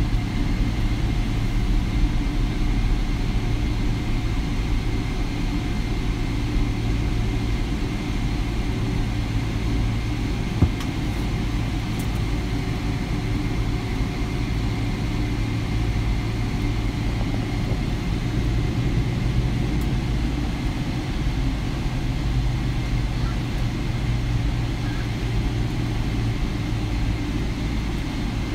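Steady low rumble and hum inside a Boeing 787 Dreamliner's passenger cabin, from the engines and air conditioning, with one short knock about ten seconds in.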